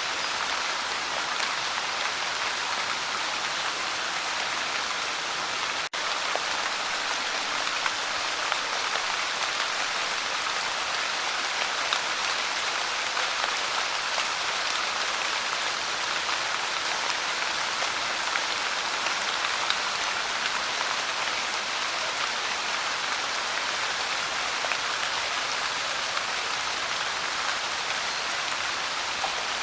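Light rain falling steadily, a dense even patter of small drops. There is a split-second dropout about six seconds in.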